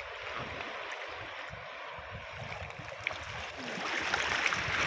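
Shallow seawater sloshing and lapping among rocks around a person wading and groping in the water by hand, over an uneven low rumble. The water noise grows louder near the end.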